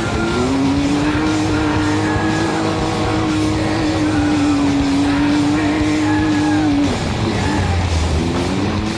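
Off-road race vehicle engine revving up and held at high revs for about six seconds, then backing off, before climbing again near the end, over background music.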